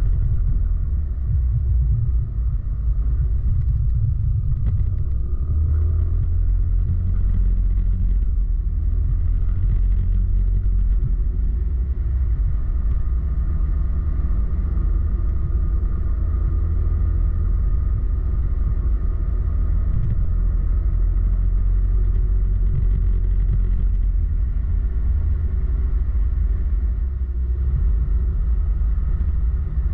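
Yamaha X-Max maxi-scooter under way at a steady pace: a steady low rumble of wind on the rider's camera microphone over the running engine.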